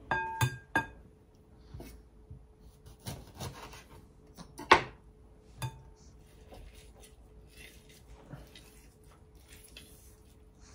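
Metal spoon scraping and pressing lemon in a wire-mesh strainer set over a glass bowl. There are a few sharp, ringing clinks of metal against glass, several within the first second and two more around the middle.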